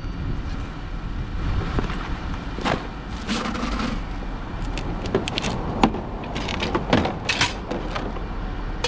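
Scattered metallic knocks and clanks of a car jack and tire tools being handled, the sharpest about six seconds in, over a steady low rumble.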